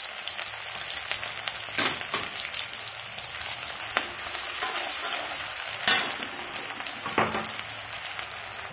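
Chopped onions sizzling in hot mustard oil in a kadhai, stirred with a metal ladle: a steady frying hiss with a few sharp clacks of the ladle against the pan, the loudest about six seconds in.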